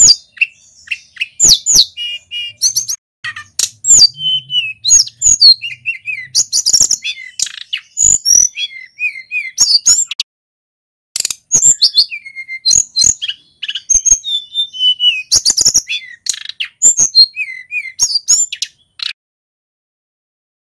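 Male sulingan gunung singing continuously in rapid runs of high whistled notes, glides and short trills, with one brief pause a little past halfway, until the song stops near the end.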